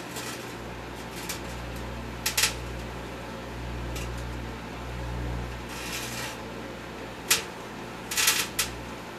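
Microwave oven running with a steady hum while a long wire twist tie arcs inside it, giving sharp crackling snaps about two seconds in and several more near the end.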